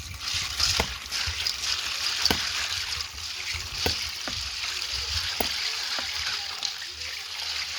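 Water running and splashing steadily, with a few light knocks about a second and a half apart.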